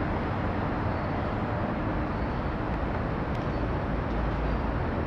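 Steady background rumble with hiss, even throughout and with no distinct events.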